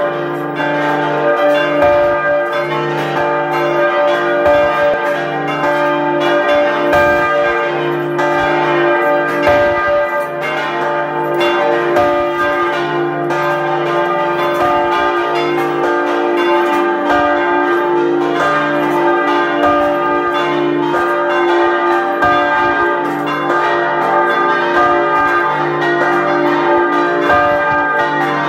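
Full peal of a cathedral's swinging church bells, all ringing together, heard close up in the belfry. Many bells are struck by their clappers over and over in a continuous, overlapping loud ringing with a steady low hum beneath.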